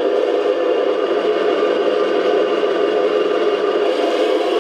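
Remote-control model T-34 tank's onboard sound unit playing a steady simulated tank engine idle through its speaker.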